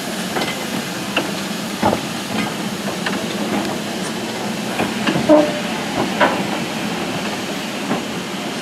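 LMS Stanier Class 5 4-6-0 steam locomotive rolling slowly past: a steady hiss of steam with occasional short knocks from the wheels and running gear.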